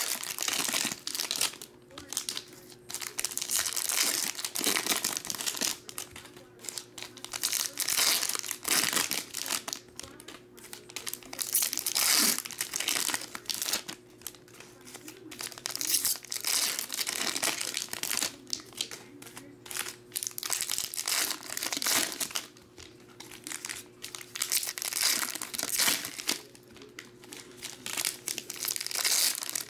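Foil wrappers of Donruss Optic trading-card packs crinkling and tearing as they are ripped open and the cards pulled out, in repeated bursts every couple of seconds.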